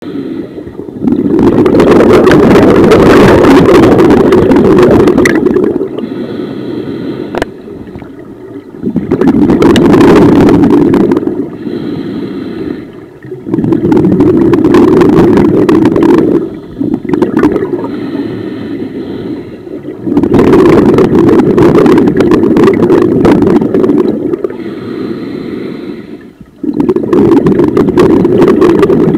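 Scuba diver breathing through a regulator, heard close: five long, loud bubbling exhalations a few seconds apart, each followed by a quieter hissing inhalation through the regulator.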